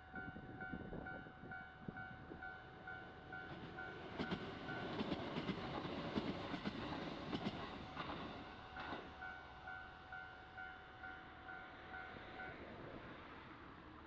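Japanese level-crossing warning bell ringing in a quick, steady ding-ding rhythm while a Kintetsu electric train passes, its rumble swelling to a peak in the middle with sharp wheel clacks over the rail joints, then fading. The bell stops near the end.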